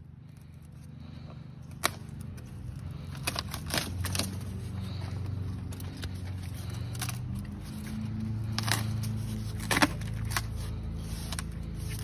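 A low motor hum that builds up and keeps going, with scattered sharp clicks and taps, the loudest about ten seconds in.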